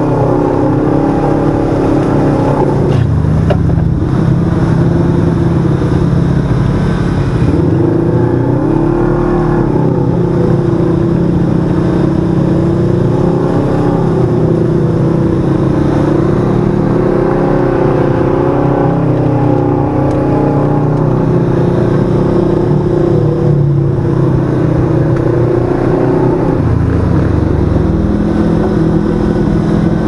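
Side-by-side UTV's twin-cylinder engine running hard on a dirt trail. Its pitch rises and falls repeatedly with the throttle, over a steady low rumble.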